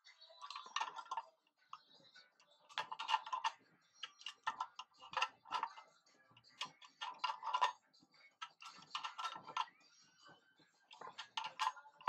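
A brass refrigerant gauge head being tightened into its manifold with adjustable pliers over Teflon-taped threads: the tool and fitting make metal clicks and creaks. The sound comes in about seven short bursts, one with each turn.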